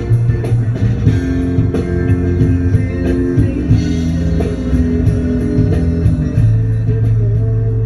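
Rock band playing an instrumental passage: electric guitar and bass over a drum kit, with a cymbal keeping a steady, even tick.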